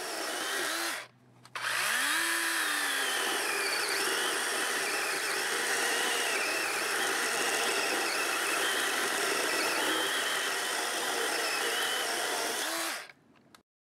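DeWalt 20V cordless electric chainsaw with a 12-inch bar, running steadily as it cuts through a log. The sound breaks off briefly just after a second in and stops abruptly near the end.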